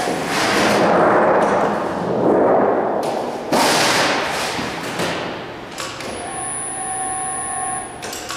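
A large 8-foot sheet of 24-gauge sheet metal being handled and flipped by hand, the thin panel flexing and rattling with a sharp pop about three and a half seconds in.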